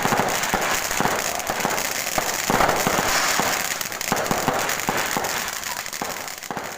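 Fireworks and firecrackers going off in a dense, continuous string of pops and bangs over crackling, thinning out and getting quieter near the end.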